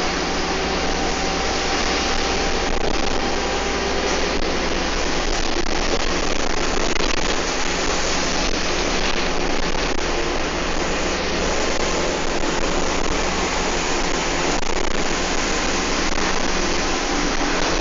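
A bus engine and road noise heard from inside the moving bus, a steady dense drone without clear changes.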